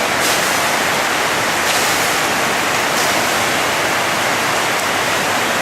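Steady rushing of floodwater: a loud, even hiss with no breaks.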